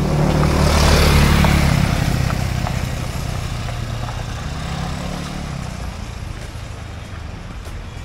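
A motor vehicle passing close by: a low engine hum with tyre and air noise that swells to its loudest about a second in, then slowly fades away.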